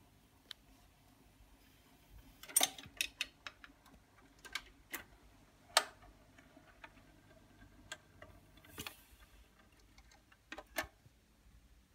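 Record player stylus riding the run-out groove of a 78 rpm shellac record after the song has ended: scattered soft clicks and crackles over faint surface noise, with a louder cluster of clicks about three seconds in.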